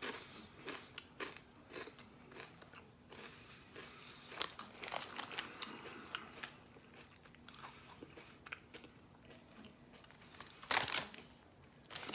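A person chewing a thin, crisp potato chip, a run of irregular crunches.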